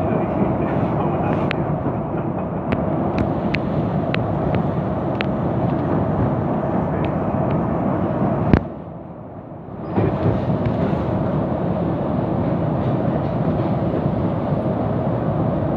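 Running noise heard from inside a moving commuter train: a steady rumble of wheels on rails with light clicks and rattles. About eight and a half seconds in there is a sharp knock, then the noise drops away for about a second and a half before the rumble returns.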